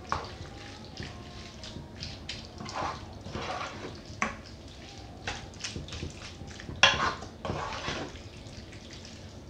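Wooden spoon stirring squid pieces with herbs and spices in a frying pan: repeated irregular scrapes and knocks of the spoon against the pan over a faint steady sizzle of the frying, with one louder stroke about seven seconds in.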